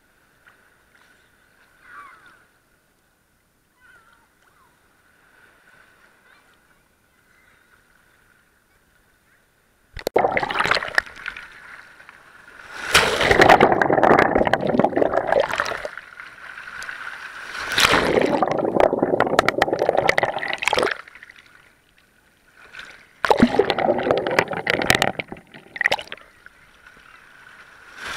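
Sea water sloshing and gurgling around a camera at the waterline as it dips under and out of small waves over pebbles. For about ten seconds there is only a faint steady hum, then the water comes in several loud surges a few seconds apart.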